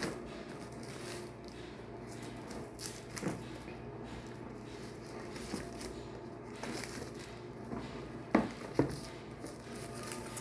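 Hands handling a shrink-wrapped cardboard box: the plastic wrap rustles and crinkles with scattered small taps, and there are two sharp knocks about eight seconds in.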